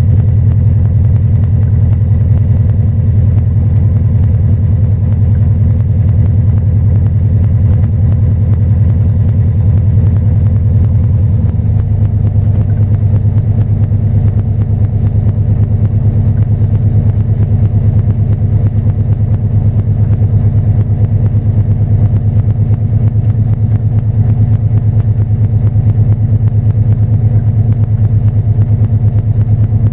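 Engine of an Independent Shipwrights IS25 pocket trawler running steadily while under way, with a fast, even pulse. About twelve seconds in, the engine note changes slightly and its lowest rumble drops away.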